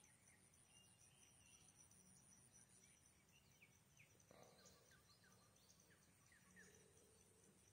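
Near silence: faint outdoor ambience of distant birds giving scattered short, falling chirps, over a thin steady high insect drone.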